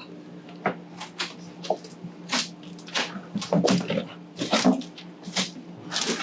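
Irregular clicks, knocks and short creaks of hand tools working screws out of a cabinet and window trim, over a steady low hum.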